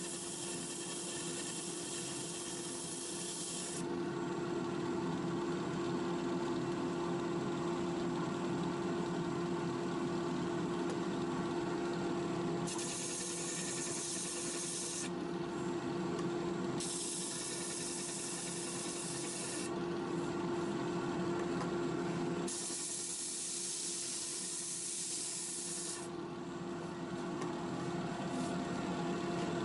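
Disc sander running with a steady hum while a redgum wood block is pressed against the spinning abrasive disc, giving a hissing rasp in about four passes of a few seconds each.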